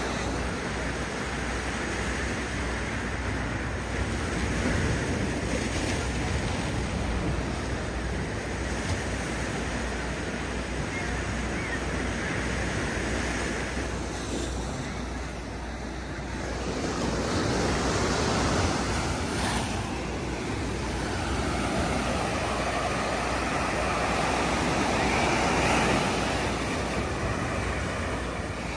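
Ocean surf breaking against the rocks of a jetty: a steady wash of waves that swells louder a few times and then eases.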